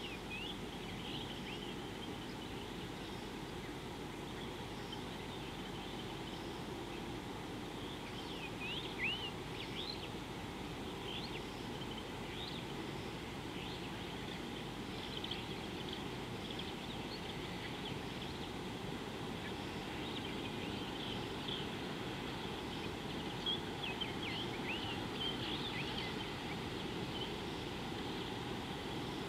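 Small birds calling with short high chirps and quick whistled glides, scattered through and in two busier spells, over a steady low background rumble.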